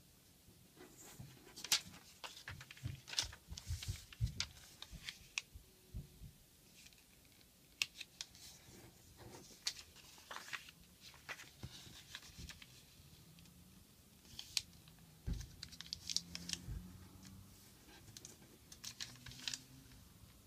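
Sheet of origami paper being handled and folded by hand: irregular crisp crinkles, rustles and creasing strokes in short clusters with pauses between, as the paper is turned over and pressed flat against the tabletop.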